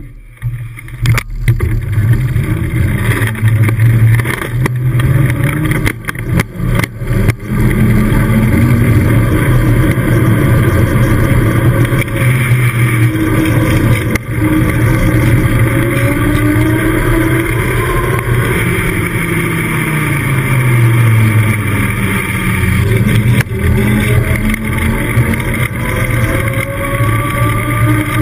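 Wind rushing over the camera microphone and bicycle tyres rolling on tarmac during a fast downhill ride. A hum rises and falls in pitch throughout. A few sharp knocks come in the first several seconds.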